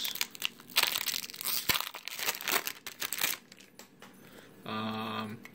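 Foil wrapper of a Yu-Gi-Oh booster pack crinkling and tearing as it is opened, busiest in the first three seconds, then quieter rustling as the cards are taken out. A short hummed voice sound near the end.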